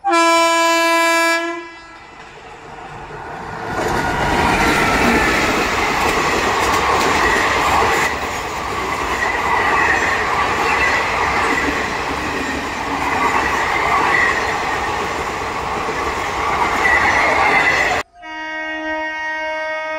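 A train horn sounds for about a second and a half, the horn of an Indian Railways electric locomotive. About four seconds in, a passenger train's coaches start passing close by, running for about fourteen seconds with steady rumbling rail noise and a wavering high wheel squeal over it. Near the end another train horn sounds, held steady.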